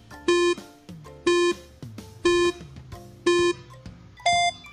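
Countdown timer sound effect beeping once a second: four identical beeps, then a fifth, higher-pitched beep marking the end of the count. Soft background music plays underneath.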